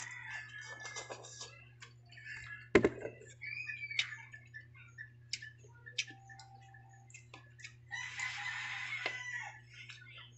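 A man eating: noodles slurped and chewed, spoon clinks, and a loud knock a few seconds in as a ceramic bowl is set down on the table. Short bird calls sound in the background, with a longer call near the end, over a steady low hum.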